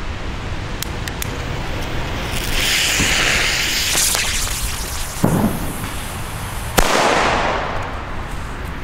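Cubic cannon-cracker (Kanonenschlag) firework: the lit fuse hisses and spits sparks, then a single sharp bang about seven seconds in, with a short trailing echo.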